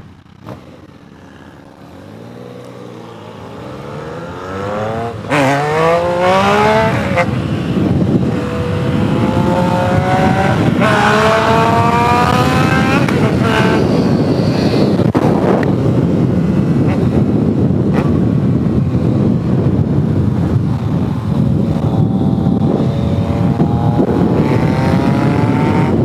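Motorcycle engine accelerating hard through the gears: its pitch climbs, drops back at each upshift several times in the first half, holds steadier, then climbs again near the end. Loud wind rush on the microphone builds as the speed rises.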